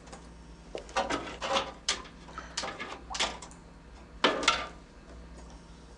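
A series of sharp knocks and clatters of hard objects being handled, the loudest two close together about four seconds in, over a faint steady low hum.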